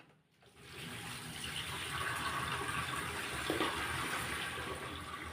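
Water running from a tap into a sink, turned on about half a second in and then running steadily.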